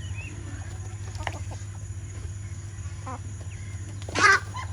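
Chickens clucking with short scattered calls, then one loud squawk about four seconds in, over a steady low hum.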